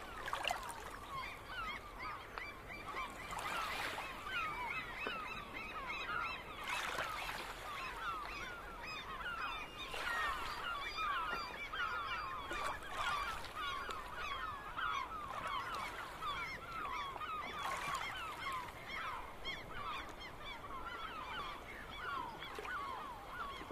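A large flock of geese calling, many short calls overlapping without a break.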